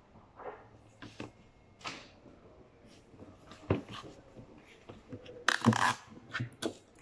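Wrapping paper rustling and crinkling as it is handled and folded around a cardboard carton, with scattered light taps and knocks; the loudest rustle comes about five and a half seconds in.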